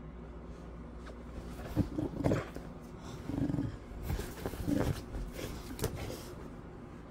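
A boxer dog growling playfully in several short, low grumbles, with a rope toy in its mouth; the grumbles start about two seconds in and come four or five times.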